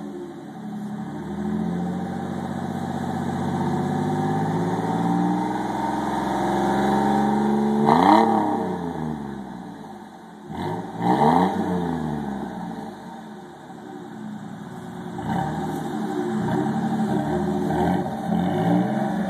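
1999 Ford F-150's 4.2-litre V6 exhaust through a single-in, dual-out Flowmaster 10 Series muffler, being revved in place: the revs climb slowly, a sharp blip comes about eight seconds in, two more quick blips follow a few seconds later, and after it drops back the engine holds at higher revs near the end.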